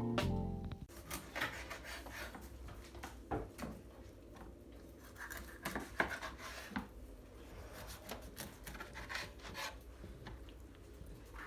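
Quiet, irregular scraping and rubbing of hands-on kitchen food preparation, with scattered light clicks and knocks. Guitar music fades out in the first second.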